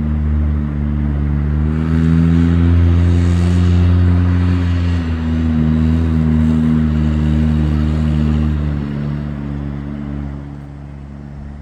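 Low ambient background music: a sustained droning chord that shifts to new notes a few times, fading out near the end.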